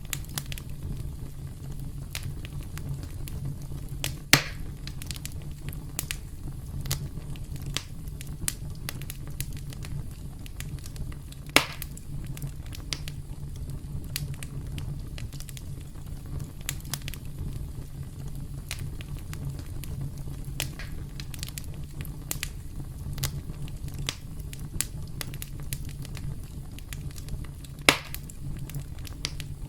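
Campfire burning: a steady low rumble of flames under constant small crackles, with three loud, sharp pops spread through, about four, twelve and twenty-eight seconds in.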